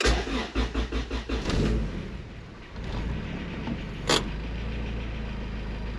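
Turbocharged car engine starting up, running unevenly for about two seconds, then settling into a steady idle. A single sharp click about four seconds in.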